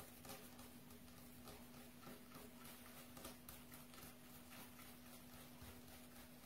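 Faint, irregular soft taps and pats of a ball of bread dough being rolled under a cupped palm on a granite worktop, over a steady faint hum.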